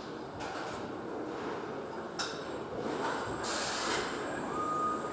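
Car assembly-line machinery as a robot fits a windshield: a steady hum of machinery, a sharp click about two seconds in, a short hiss of air a second or so later, and a steady high tone that starts near the end.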